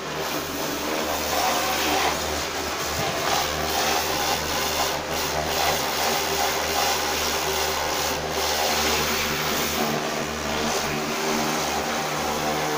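Mini high-pressure washer running steadily, its pump motor humming under the hiss of the water jet spraying onto a scooter.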